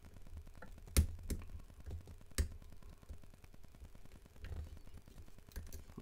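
Small metallic clicks of a lock pick working the levers of a Fichet eight-lever pump-type safe lock under tension: one sharp click about a second in, a couple more soon after, and fainter ticks, over a faint low hum.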